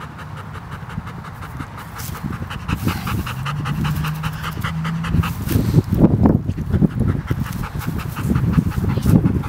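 Rapid, even panting close to the microphone, like a dog's, with low rumbling noise growing louder in the second half.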